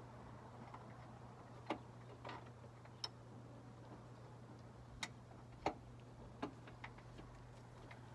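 Light clicks and knocks at uneven intervals, about seven in all, as a part is handled and hooked into place in a truck's engine bay, over a faint steady low hum.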